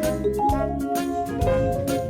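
Background music: an upbeat jazzy tune with mallet-like pitched notes over a steady drum beat.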